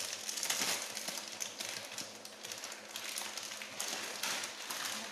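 Plastic pasta packet crinkling and rustling in the hands as it is opened, many irregular crackly ticks over a steady hiss.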